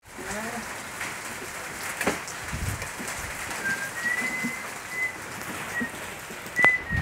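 Steady rain falling, with birds calling over it: a few short, high whistled notes in the middle and a sharp click near the end.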